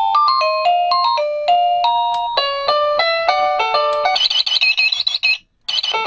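Wireless doorbell receiver playing its electronic ring-tone melodies, moving from one tune to the next as its tones are cycled. A plinking melody gives way about four seconds in to a fast warbling chirp, which stops briefly near the end before another tune starts.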